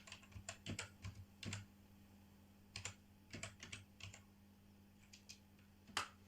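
Typing on a computer keyboard: a quick run of keystrokes, a pause, a second run, then a single louder click near the end, over a faint steady low hum.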